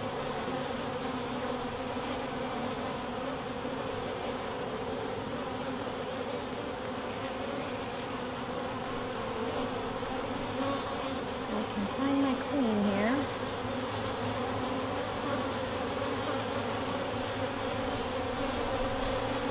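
Honeybees buzzing steadily in a dense hum over an open hive as a frame covered in bees is lifted out, with one brief louder, wavering note about twelve seconds in.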